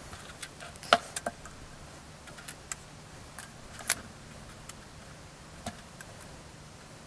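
Scattered light clicks and taps of small styrene sheet pieces being handled and set down on a cutting mat, about a dozen, the loudest about four seconds in.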